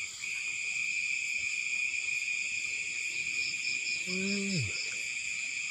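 Night insects, crickets among them, trilling steadily in several high pitches, with a faster pulsing trill for a second or so near the end. About four seconds in, a brief low voice-like call falls in pitch.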